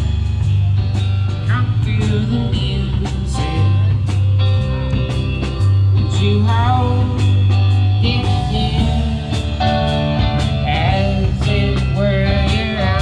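A band playing live at an open mic, with a prominent bass line stepping between notes, guitar, regular drum hits and singing over the top.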